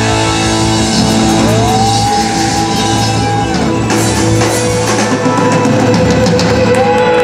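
Live rock band with drum kit, bass and electric guitars playing loudly. A lead guitar bends a note up and holds it, then sustains one long note over the band.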